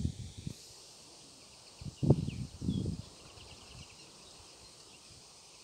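Garden ambience: a steady high hiss with faint short bird chirps, broken about two seconds in by a couple of dull low thuds close to the microphone.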